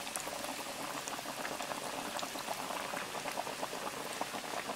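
Breaded salmon pieces frying in a deep fryer's hot oil, which bubbles and sizzles hard around them just after they go in: a steady, dense crackle of tiny pops.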